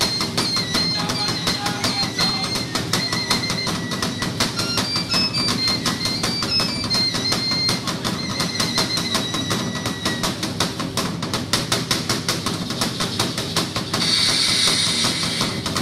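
Drum-led music accompanying the dance: fast, even drumbeats, with a high stepping melody over them for the first ten seconds or so. Near the end a hissing, rattle-like noise joins in.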